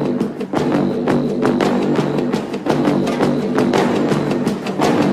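Background music with a fast, driving percussive beat over sustained low tones.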